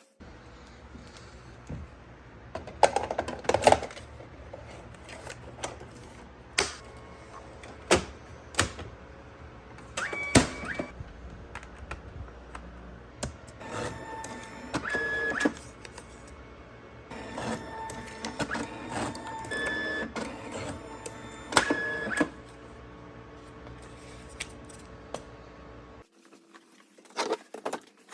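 Scattered sharp clicks and knocks, with a run of short electronic beeps in the middle, over a steady low hum that cuts off near the end.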